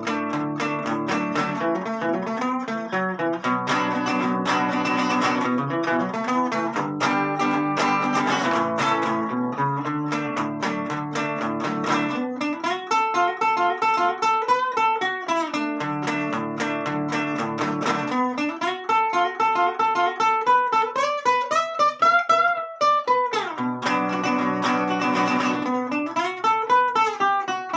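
Nylon-string classical guitar played solo: strummed chords for about the first twelve seconds, then picked runs of single notes climbing and falling, with strumming coming back briefly before another run near the end.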